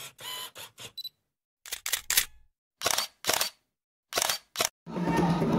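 Camera-shutter sound effects: a series of short clicks separated by silent gaps. Near the end, drumming starts and carries on.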